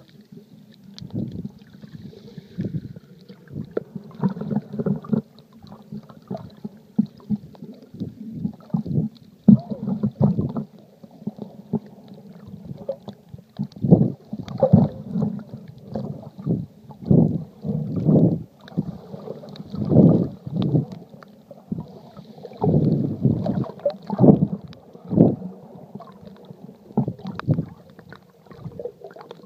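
Water sloshing and gurgling against an iPhone's sealed waterproof case held underwater, heard muffled from inside the case as irregular low thumps and swishes.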